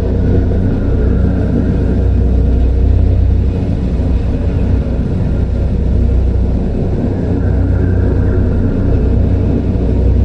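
Dark horror ambience: a loud, steady, deep drone, with a faint hazy layer higher up that swells a little now and then.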